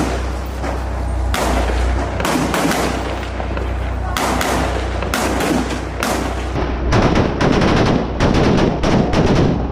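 Small-arms gunfire in a firefight: bursts of sharp shots with short gaps, becoming a rapid string of several shots a second in the last few seconds.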